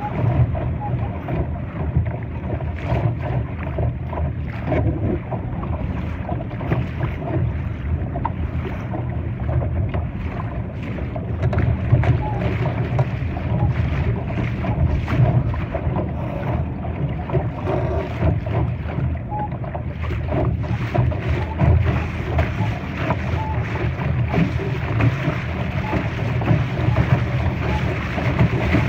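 Wind rumbling on the microphone and water rushing and splashing along the hull of a Laser sailing dinghy under way, with frequent short splashes.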